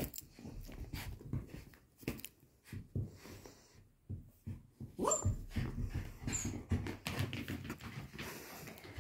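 Puppy making a short whimper about five seconds in, over scattered rustling and knocks of movement on a quilted mat.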